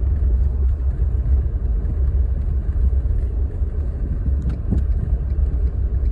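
Steady low rumble of a truck driving along, road and engine noise heard from inside the cab, with a couple of faint ticks about four and a half seconds in.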